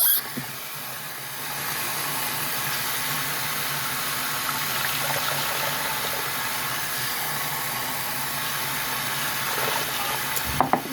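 Water running steadily from a tap into a sink, a continuous even rush, with a few small knocks near the end.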